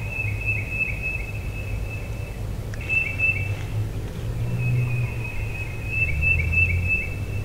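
A high, steady trilled call from a small animal, repeated three times with short breaks, each trill lasting from under a second to about three seconds. A constant low rumble runs underneath.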